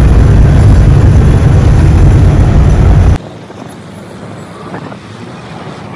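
Heavy truck engine running loud and steady with a deep rumble. About three seconds in it cuts off abruptly, leaving a much quieter background noise.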